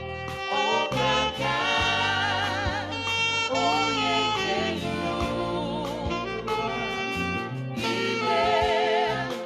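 Saxophone playing a slow gospel worship melody with wavering vibrato on its long notes, over a steady keyboard-and-bass backing with light drums.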